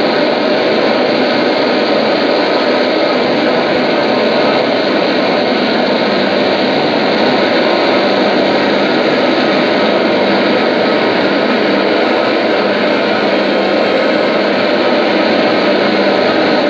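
A loud, steady wall of noise from a live experimental noise performance: a dense drone with no beat, breaks or clear pitch changes.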